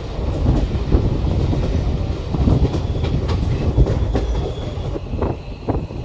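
Train wheels running on the track, heard from inside a non-air-conditioned passenger coach: a dense, steady rumble, with sharper wheel clacks over rail joints near the end.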